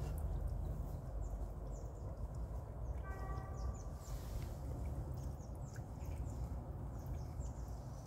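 Mountain stream water running under and around ice, a steady wash with a low rumble and small high trickling chirps. About three seconds in, a short pitched call lasting under a second sounds over it.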